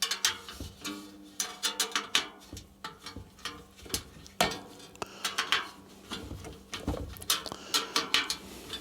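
Spoke key clicking on spoke nipples and spokes clinking and pinging while a mountain bike wheel is trued and tensioned: a run of irregular metal taps and clicks with short ringing tones.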